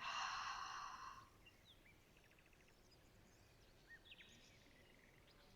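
A long breath let out through the mouth, a breathy rush lasting just over a second. Then faint birdsong: a few scattered chirps and a short trill.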